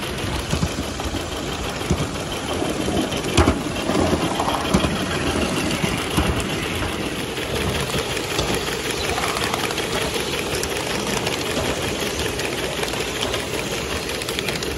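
Coal-fired 3½-inch gauge live-steam model of a BR Britannia locomotive running along a raised track: steady steam and wheel noise with a few sharp clicks in the first few seconds.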